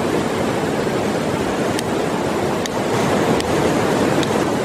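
A shallow river rushing steadily over stones, with a few faint clicks of a lighter being struck, about one a second from partway through, as it tries to light an alcohol stove in the cold.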